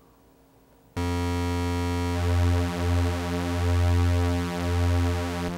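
Behringer DeepMind 12 analogue synthesizer holding one low sawtooth note that starts about a second in, its four unison voices detuned against each other. The tone swells and fades slowly as the unison detune is turned up, thickening the sound.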